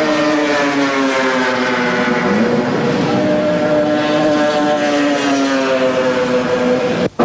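Racing motorcycle engines running at high revs, several steady engine notes heard together, with one rising as a bike accelerates about two seconds in. The sound drops out abruptly near the end.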